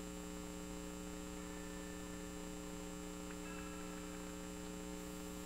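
Steady electrical mains hum over a faint hiss.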